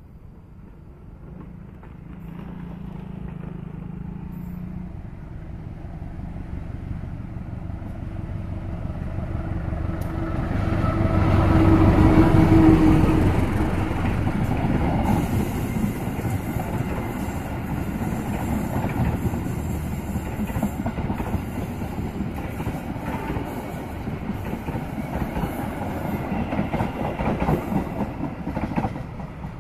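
Diesel-hauled Serayu passenger train approaching and passing close by: the locomotive builds to its loudest about twelve seconds in, then a long run of coaches rolls past, wheels clacking on the rails. The sound drops off near the end.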